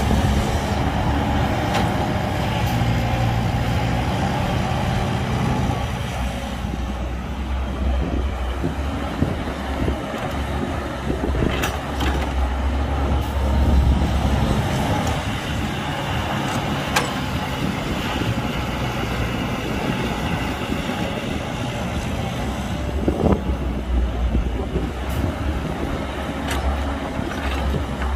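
Caterpillar 312 hydraulic excavator working, its diesel engine running with a steady low drone as it loads dirt into a dump truck, with a few sharp knocks now and then.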